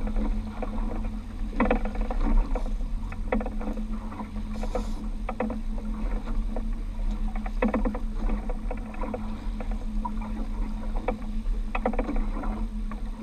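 Outboard motor running steadily at low speed, a constant low hum, with irregular splashes and slaps of water against the boat's hull.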